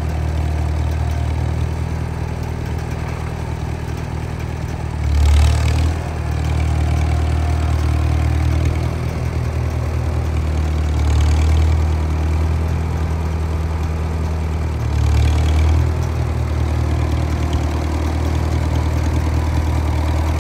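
Farmall H tractor's four-cylinder engine running at a steady low speed, getting briefly louder three times: about five, eleven and fifteen seconds in.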